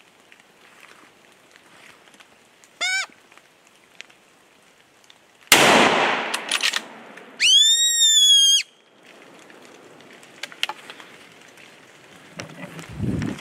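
A short, high bleat from a deer fawn call, then a single loud rifle shot with a rolling echo about two and a half seconds later, followed by a longer, louder high bleat lasting about a second. Steady rain hiss underneath.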